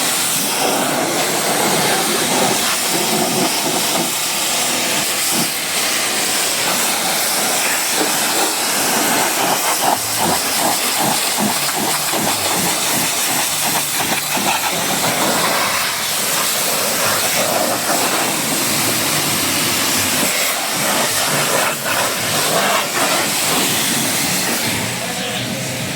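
High-pressure water jet spraying a car, a steady loud hiss with a spattering, uneven edge as the spray moves over the surfaces.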